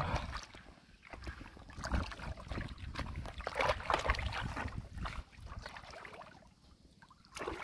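Water sloshing and splashing in shallow water, with scattered clicks and knocks, quieter in the last couple of seconds.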